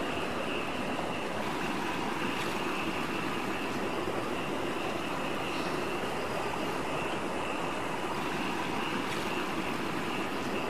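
Steady rush of flowing stream water with a constant high thin tone above it and a few faint ticks.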